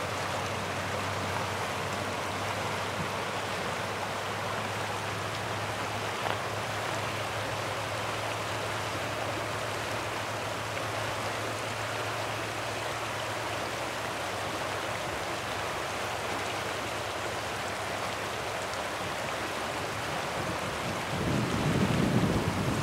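Shallow river water rushing over a rocky riffle, a steady rush. Near the end a louder low rumble comes in over it.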